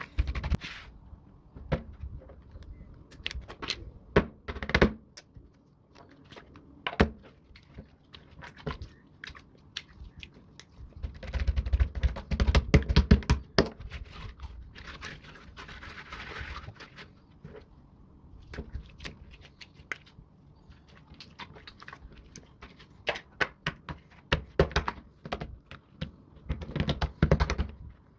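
Slime being squished and poked by hand: irregular sticky clicks and pops, with louder, denser stretches of crackling about eleven seconds in and again near the end.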